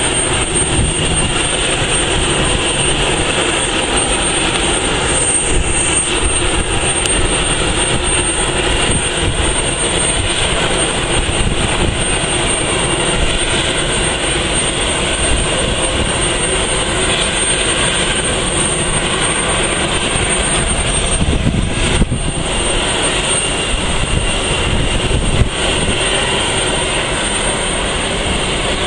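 Airbus A340-600 jet airliner's engines running at approach power, a steady rumbling roar that holds level throughout.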